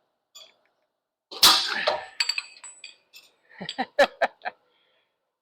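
Metal clanging and knocking from a hand-operated bender as steel stock is bent. There is one loud clang with ringing about a second and a half in, then a scatter of smaller clinks and sharp knocks.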